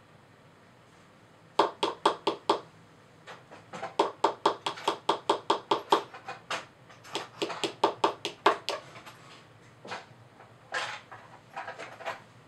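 Small pink plastic toy mallet tapping a pick into the plaster dig block of a dinosaur excavation kit. The taps are sharp and come in quick runs of about four or five a second, with short pauses between runs and a few scattered taps near the end.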